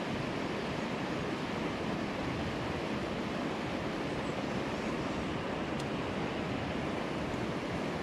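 Steady rush of a mountain stream running over rocks and riffles.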